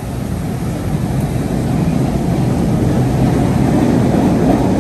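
MBTA subway train running past, a steady low rumble that grows gradually louder.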